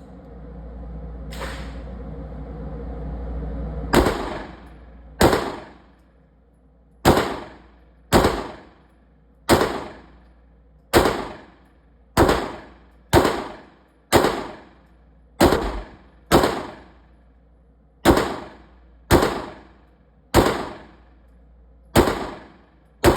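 Pistol fired single shots in slow, steady succession: about sixteen sharp shots, each a second or so apart with a short ringing tail. They begin about four seconds in, after a low rushing noise builds up.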